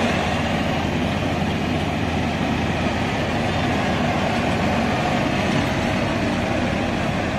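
Diesel farm-machine engine running steadily with a low, even drone.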